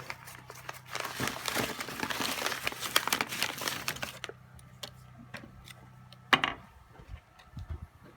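Crinkling, rustling handling noise for about three seconds, then scattered small clicks and one sharp knock about six seconds in.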